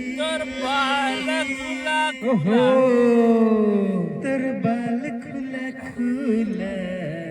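A man's voice singing long, drawn-out, wavering notes in a chant-like style, with one long note sliding down in pitch in the middle.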